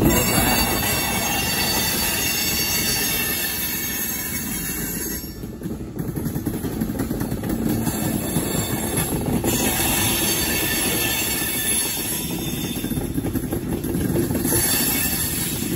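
Freight cars of a CSX manifest train (boxcars, tank cars and covered hoppers) rolling steadily past, their steel wheels rumbling and clattering on the rails, with a thin high wheel squeal over the top.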